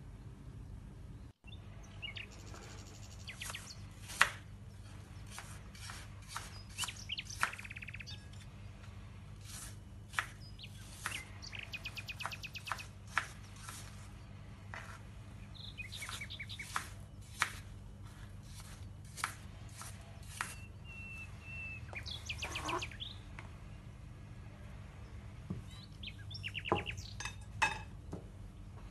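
Small birds chirping in the background, with scattered sharp knocks of a knife cutting through apple onto a plastic cutting board.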